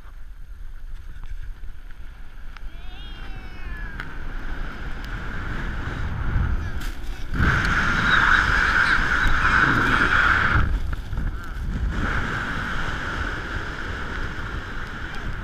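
Snow tube sliding fast down a packed tubing lane: a rushing noise of the tube over the snow that builds as it picks up speed, with a loud scraping hiss for about three seconds past the middle. A short voice call about three seconds in.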